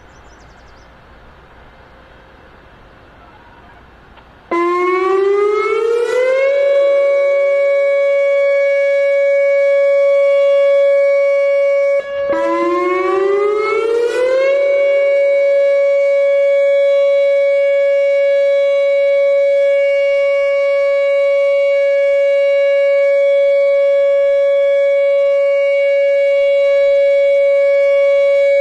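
Whelen 2910 electronic outdoor warning siren sounding its steady Alert tone on a test activation. After a few seconds of quiet background, the tone slides up in pitch over about two seconds and holds steady; about eight seconds later it drops out for an instant, slides up again and holds.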